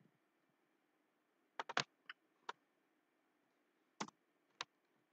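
Faint, scattered keystrokes on a computer keyboard: a quick run of three about a second and a half in, then single clicks.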